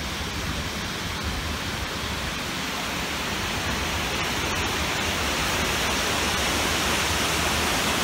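Steady rush of a waterfall pouring out of a tunnel over a ledge, growing a little louder toward the end.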